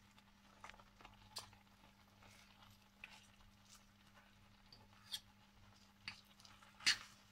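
Metal fork tapping and scraping against a frying pan while turning cubes of feta among fried peppers: a few faint, irregular clicks, the loudest near the end, over a low steady hum.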